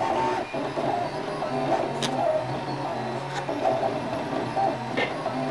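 Ultimaker Original 3D printer printing: its stepper motors whine in quickly changing tones as the print head moves, over a steady low hum. There are two sharp clicks, about two and five seconds in.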